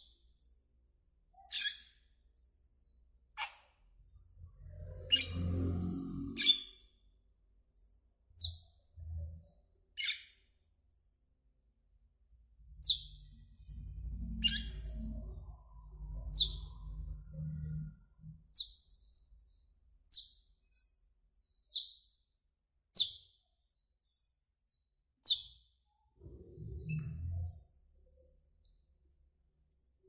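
Asian glossy starling giving short, sharp, high chirping calls, one every second or two. A low rumble comes and goes underneath at times.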